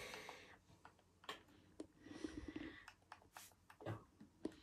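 Near silence: room tone with a soft breath at the start and a few faint, scattered clicks.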